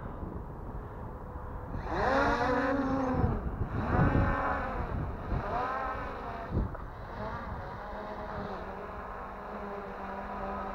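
MJX Bugs 3 Pro quadcopter's motors and propellers whirring as it lifts off and climbs, the pitch swelling and falling in several surges before settling into a steadier hover tone.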